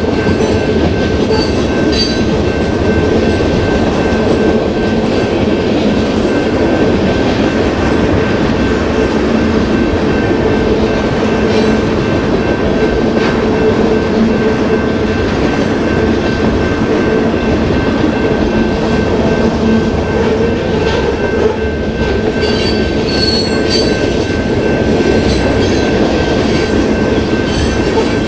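Freight train of tank cars and covered hoppers rolling past at speed: a loud, steady rumble of steel wheels on rail with scattered sharp clicks over the rail joints and a thin, steady high ringing tone on top.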